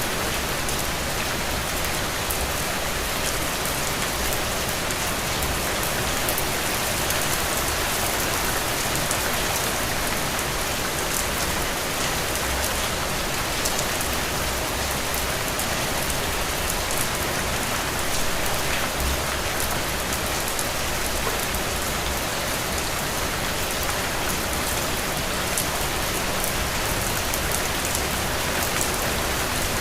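Steady rain falling, an even hiss with scattered small drop taps.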